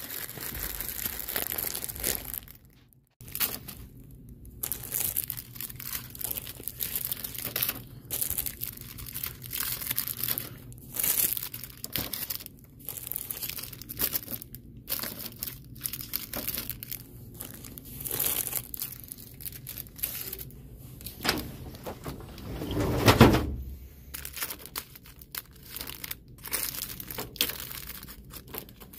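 Plastic microwave popcorn packets crinkling as they are handled and pushed one by one into a snack vending machine's spiral coil. There is a louder thump about four-fifths of the way through.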